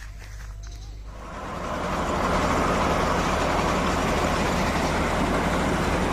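A large engine running steadily at close range. It swells in about a second in, then holds an even, loud level.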